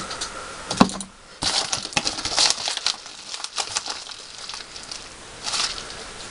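Small boxes and packaging being handled: a sharp click just under a second in, then a run of quick clicks and rustling, and another short rustle near the end.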